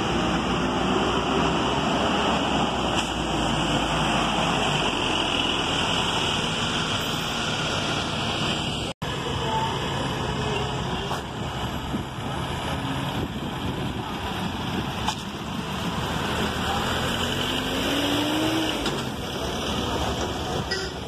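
City bus engines running as buses pull away and pass close by, over the steady hum of a busy bus stand. Near the end one engine's note rises as a bus accelerates past.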